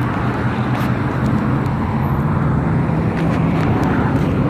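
Road traffic at an intersection: vehicle engines running steadily, with a few faint ticks.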